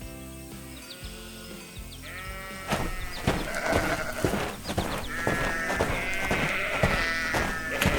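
Cartoon background music with short sharp taps; from about two seconds in, repeated wavering bleats of farm animals join it and grow louder.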